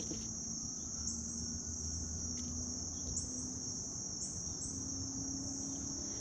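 Steady high-pitched trill of insects in the background, unbroken throughout, over a faint low hum.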